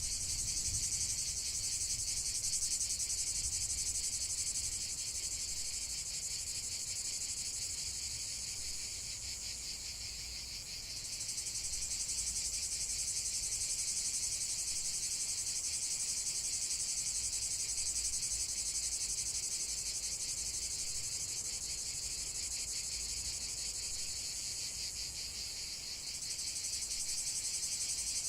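Steady high-pitched chorus of insects, with a faint low rumble beneath. The chorus changes slightly and abruptly about eleven seconds in and again near the end.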